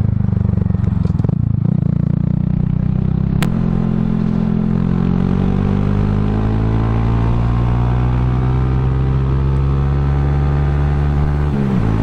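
Honda Grom MSX125's 125cc single-cylinder four-stroke engine running under throttle through an aftermarket dual-outlet full exhaust, heard on board while riding. There is a sharp click about three and a half seconds in, then the engine pitch climbs steadily as the bike accelerates and drops sharply near the end.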